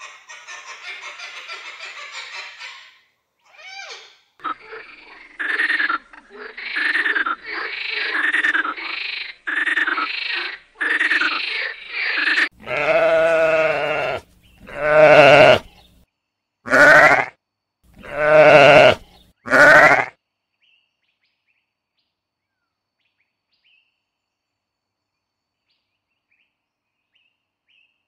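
A cockatoo chattering scratchily for about three seconds, then a run of about eight short, high bleats, then sheep bleating loudly four or five times in deeper, drawn-out calls.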